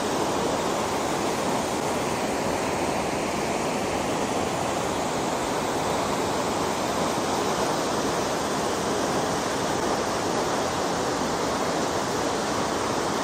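A 7.6-metre river waterfall heard from close to its foot: a steady, even rush of falling water.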